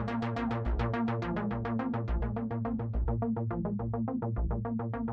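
Electronic background music: a fast, even pulse of short synthesizer notes, about eight a second, over a deep bass beat.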